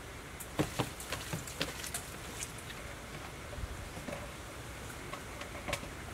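Light, scattered clicks and taps of hands handling food in plastic bowls. They come in a cluster during the first two seconds, with one more near the end.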